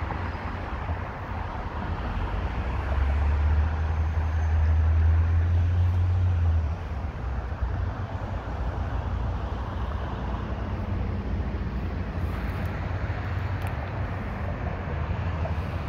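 Road traffic noise, a steady hum and hiss. A louder low rumble swells early on and cuts off abruptly a little before halfway.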